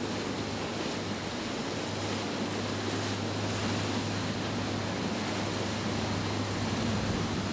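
Rushing, splashing water from a 55-foot Azimut motor yacht's bow wave and wake as it passes at speed, with a steady low engine hum underneath; the yacht is going too fast for the no-wake canal and pushing a big wake.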